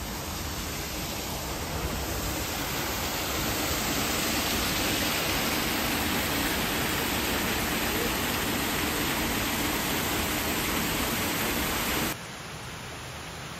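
Small waterfall pouring over rocks into a pool on a rocky forest stream: a steady rush of water that grows louder over the first few seconds, then drops off suddenly near the end to a quieter wash.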